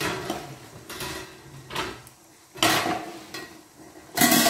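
A large aluminium pan lid clattering against a stainless steel frying pan as it is handled and set on. There are several separate metallic clanks, each with a brief ring, and the loudest comes near the end.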